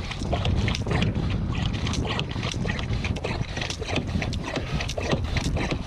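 Wind buffeting the microphone in a steady low rumble over choppy water around the kayaks, with many small irregular clicks and knocks.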